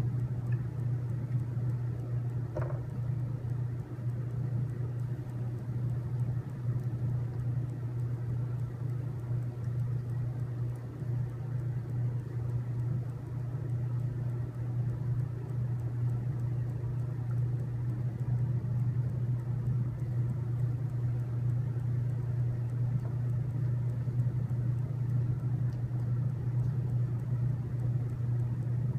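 A steady low mechanical hum, unchanged throughout, with a faint small click about three seconds in.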